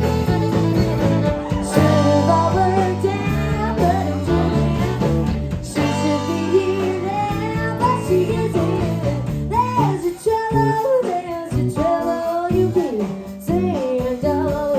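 Live country band playing, with acoustic guitar under a woman singing lead.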